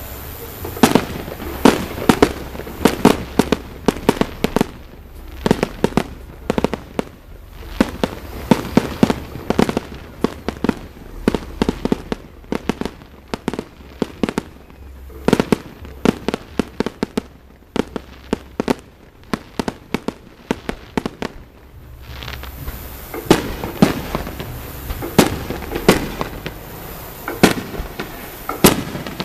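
Aerial fireworks shells bursting: dozens of sharp bangs in rapid clusters, thinning near the end to fewer, louder bangs about a second apart.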